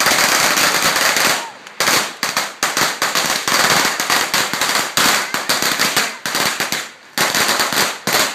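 A long string of firecrackers going off in a rapid, continuous crackle of pops, with brief lulls about a second and a half in and again about seven seconds in.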